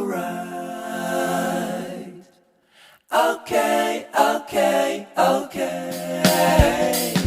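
Background music of voices singing a cappella, with a brief pause about two and a half seconds in.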